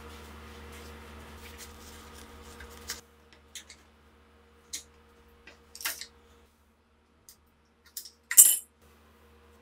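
Flat-blade screwdriver prying and scraping at the rusted steel receiver of a STEN Mk2 submachine gun: scattered short metal scrapes and clicks, then a sharp ringing metallic clink, the loudest sound, a little over eight seconds in.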